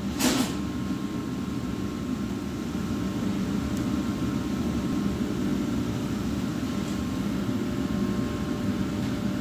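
Steady low roar of glass-studio machinery, with a brief hiss just after the start.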